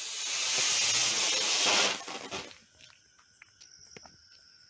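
Helicopter firework (Diwali flying spinner) burning as it spins up into the air, a loud hiss of sparks that grows for about two seconds and then dies out.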